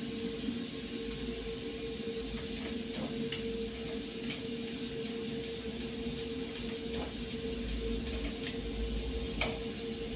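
Steady hiss with a constant hum from a gas stove with covered pots cooking over lit burners, and a few faint light clicks of pans and knobs being handled.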